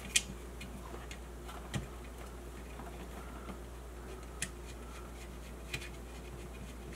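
A handful of sparse light clicks and knocks from cable connectors being handled as a coax cable is screwed onto a cable modem, over a steady low hum.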